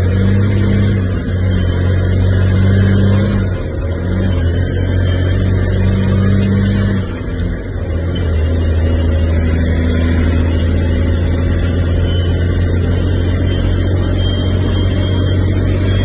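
Peterbilt 379 semi truck's diesel engine, heard from inside the cab, pulling a heavy load. The engine note drops off briefly about three and a half seconds in and again about seven seconds in as the manual transmission is shifted, then pulls steadily.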